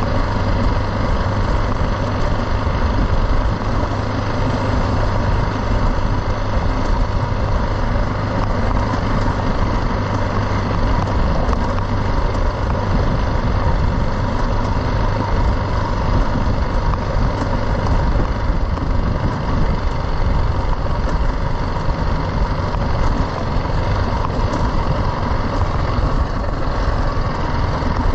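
BMW G310 GS single-cylinder engine running at a steady cruise on a dirt track, mixed with a steady rush of wind and tyre noise.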